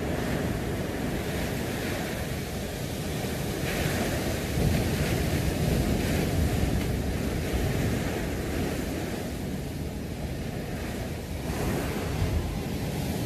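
Hurricane wind and driving rain lashing palm trees, with heavy wind buffeting on the microphone that swells in gusts.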